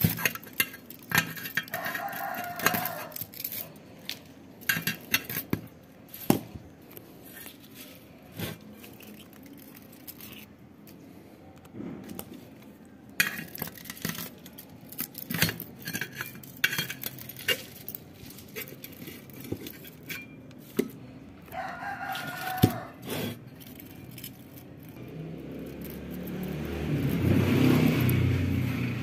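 Scattered metal clicks and scrapes of pliers working old aluminium winding wire out of an electric motor's stator slots. A rooster crows twice, once about two seconds in and again a little past twenty seconds. Near the end a low rumbling noise swells up and becomes the loudest sound.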